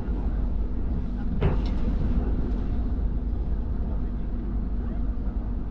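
Running noise inside a train carriage: a steady low rumble, with a single sharp clunk about a second and a half in.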